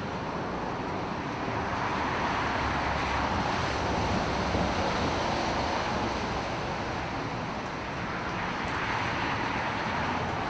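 Steady rushing noise of traffic, even and unbroken, with no distinct events.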